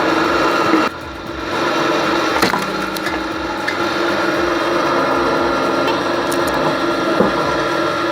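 A firewood log splitter running with a steady machine hum while logs crack and split apart, with sharp cracks about two and a half seconds in and again near the end.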